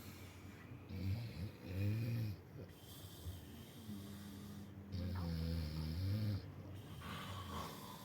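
Snoring: a series of deep, pitched snores in a row, each lasting up to about a second and a half, with quieter breathing between them.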